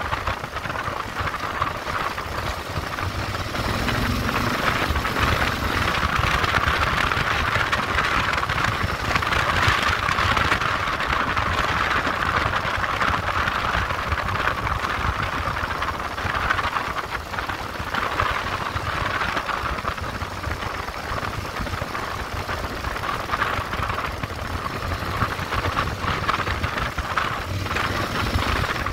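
Motorcycle being ridden: engine running at a fairly steady pace, mixed with wind and road noise.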